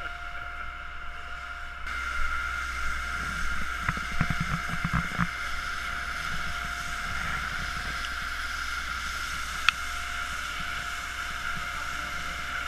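A pump running steadily, with water rushing through a discharge hose, louder from about two seconds in. There is a cluster of knocks around four to five seconds and one sharp click near ten seconds.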